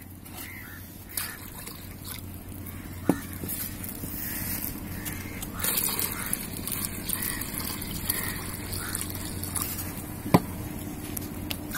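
Liquid being poured from a steel pot into a steel bowl, a steady splashing trickle, with two sharp clinks of steel vessels knocking together, one about 3 seconds in and one near the end.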